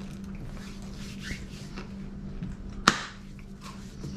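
A person eating: faint chewing and soft utensil sounds, with one sharp click about three seconds in, over a steady low hum.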